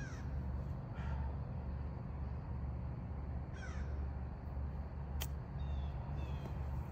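A golf club chipping a ball off the grass: one sharp click about five seconds in. Birds call now and then over a steady low rumble.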